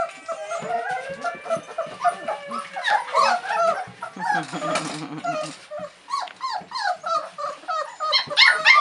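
A litter of about four-week-old Czechoslovakian Wolfdog puppies whining, squeaking and yelping over one another in excitement, with a lower, longer call about four seconds in and the squealing getting louder near the end.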